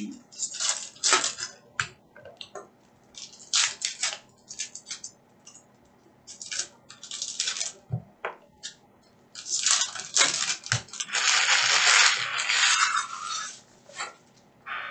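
Foil trading-card pack wrappers crinkling and tearing, with cards being flicked and set down onto stacks, in a string of short crackly rustles. About two-thirds of the way in the crinkling runs on for several seconds.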